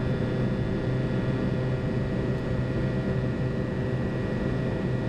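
Flight-deck noise of a Boeing 737-200 in the climb after takeoff with flaps up: a steady rush of airflow and engine hum from its Pratt & Whitney JT8D turbofans, with several steady tones underneath and no change in pitch or level.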